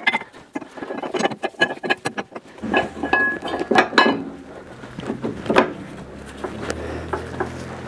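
Metal suspension parts clinking and knocking as a greased shock-absorber fork is worked into place on a car's front suspension. A low steady hum starts a couple of seconds in.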